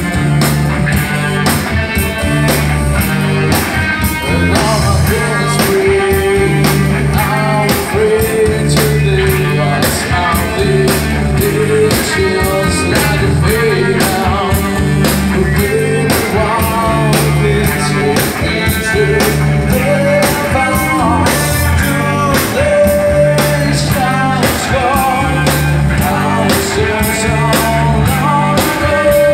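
Live rock band playing: a lead singer over electric guitar, bass guitar and a drum kit keeping a steady beat.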